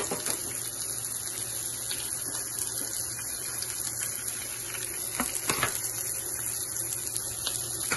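Chopped onion, curry leaves and green chilli frying in hot oil in a nonstick pan: a steady sizzle, with two faint clicks a little past halfway.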